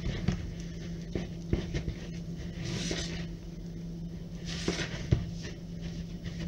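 A spoon stirring flour into thick dough in a plastic bowl, with light taps and soft scraping swishes, the loudest about three seconds in and just before five seconds. A steady low hum runs underneath.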